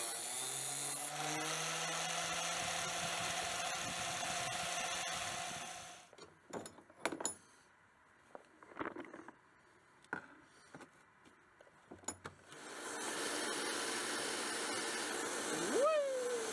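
An angle grinder with a cut-off disc cuts through a steel knife blank. Its pitch rises over the first couple of seconds, then it stops about six seconds in. A few light knocks follow in near-quiet, and then, from about thirteen seconds, a small 1 x 30 inch belt sander runs steadily, with a brief whine that rises and falls near the end.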